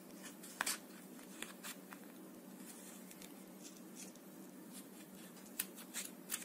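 Faint handling sounds of hands tying yarn to bind a crochet tassel: scattered soft rustles and a few light ticks over a low steady hum.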